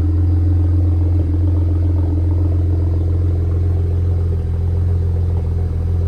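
BMW 535xi's twin-turbo 3.0-litre inline-six idling steadily while still warming up from a cold start, heard at the rear near the tailpipe. The idle is smooth, which the owner credits to fresh intake and ignition maintenance.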